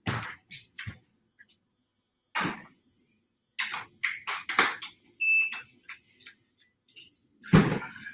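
A series of short sharp clicks and knocks, irregularly spaced, with a quick cluster in the middle and the loudest near the end. About five seconds in comes one short electronic beep.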